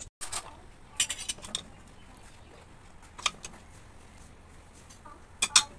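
Steel ladle and utensils clinking against stainless steel plates and a pot in a few scattered, sharp clinks: a little cluster about a second in, a single one in the middle, and two quick ones near the end.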